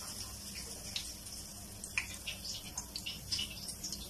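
Besan-battered pointed gourd (potol) slices shallow-frying in hot oil: a soft sizzle with scattered sharp crackles and pops of spattering oil.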